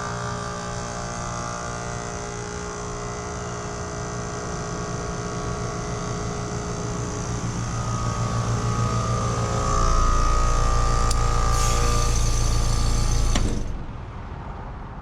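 Trane XR14 heat pump running in defrost: the compressor hums steadily and grows louder, a hiss builds near the end, then with a click the sound cuts off sharply about 13.5 s in, leaving a quieter hum as the defrost cycle ends.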